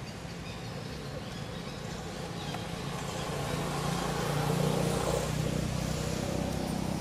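A motor vehicle passing by, its engine sound swelling to a peak about four to five seconds in, then easing off.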